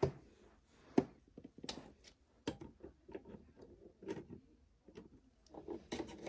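Small plastic toy figures being handled and set down in a plastic dollhouse: a scattering of light clicks and knocks with soft rustling, the sharpest click about a second in.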